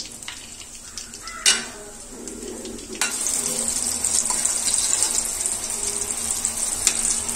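Breadcrumb-coated chicken rolls deep-frying in hot oil. At first there is sparse crackling and one sharp clack about a second and a half in. About three seconds in it turns suddenly to a loud, steady sizzle.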